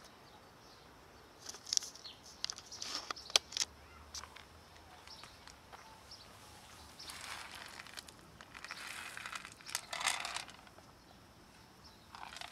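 Rustling and crackling close by: a cluster of sharp clicks and crinkles in the first few seconds, then two longer rustles in the second half.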